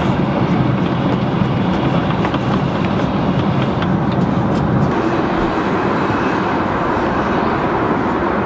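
Steady airliner cabin noise in cruise flight: the constant rush of airflow and engines inside an Airbus A380's cabin. About five seconds in, the low hum drops back a little.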